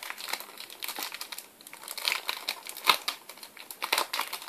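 Foil Match Attax trading-card packet being torn open and crinkled in the hands: irregular crackling, with a few louder crinkles about two, three and four seconds in.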